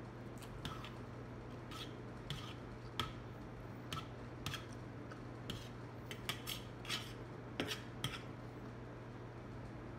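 Metal fork clinking and scraping on a plate as pancit noodles are gathered up: about a dozen short, irregular clicks and scrapes that stop about eight seconds in, over a steady low hum.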